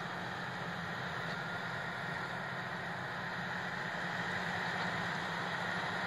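Engine of sugar beet harvest machinery running steadily: a low hum under an even mechanical rush, getting slightly louder.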